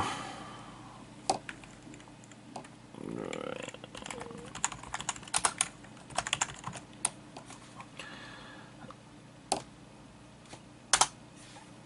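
Typing on a computer keyboard: irregular scattered keystrokes, with a quick run of them in the middle.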